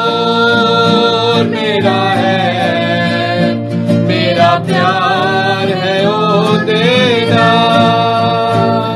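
Music: a Punjabi devotional song, a voice singing long, wavering held notes over plucked-string accompaniment.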